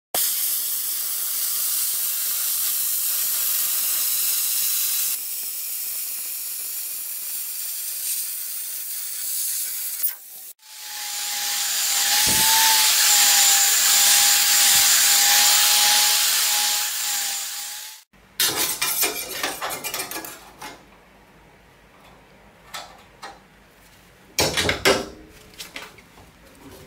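TIG welding arc hissing for about ten seconds. Then a grinder with a spinning abrasive disc runs on metal for about seven seconds, a loud hiss with a steady whine. It stops suddenly, and metal clicks and clanks follow as a strip is bent in a sheet-metal brake.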